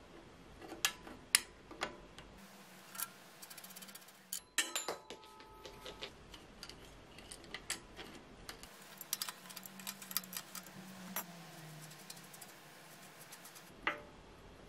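Hand tools on a bicycle's bottom bracket: slip-joint pliers and an adjustable wrench clicking and clinking against the steel lockring and cup as they are loosened and unscrewed from the frame, with a quick run of light ticking about ten seconds in.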